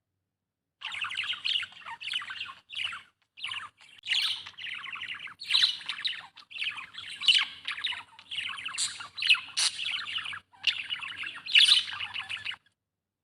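Budgerigar chirping and chattering in a rapid, busy warble with short breaks. It starts about a second in and stops just before the end.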